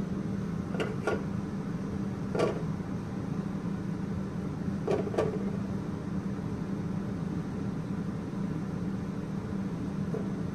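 Plastic mesh flour sieve tapped and shaken over a bowl: five light knocks, two close together, then one, then two more. A steady low machine hum runs underneath.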